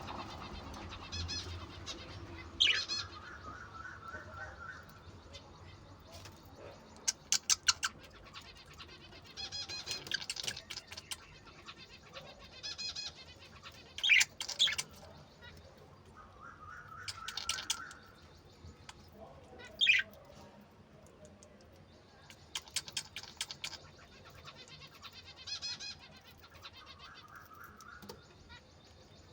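Budgerigars chirping and chattering in short calls scattered throughout, some sliding down into a brief warble, with occasional quick runs of clicks.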